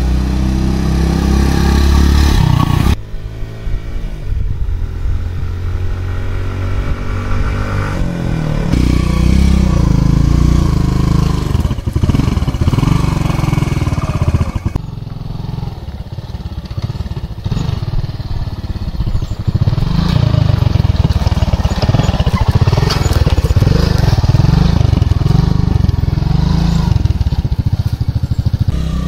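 Motorcycle engine running while the bike is ridden on a road and then over rough forest ground, its revs rising and falling. The sound drops suddenly about three seconds in.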